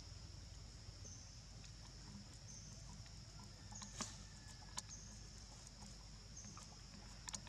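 Faint outdoor ambience: a steady high-pitched insect drone that swells roughly every second and a half, with a few sharp clicks, the loudest about four seconds in and a quick pair near the end.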